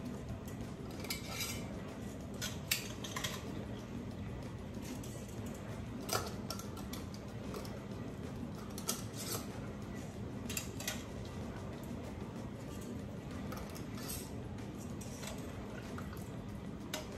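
Metal ladle clinking and scraping against a pot as chicken broth is ladled into glass canning jars, in scattered light clinks with pauses between, over a faint steady low hum.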